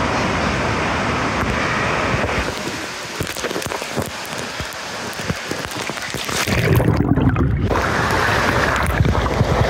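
Steady rushing and splashing of the churning water in an indoor waterpark's lazy river, close to the water. About seven seconds in it turns briefly muffled and heavier for a moment.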